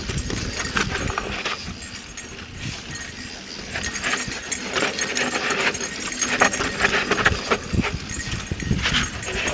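Yeti SB 4.5 full-suspension mountain bike being ridden over a rough dirt trail: tyres crunching over dirt and rocks, with many irregular clicks and rattles from the bike over bumps, busier in the second half.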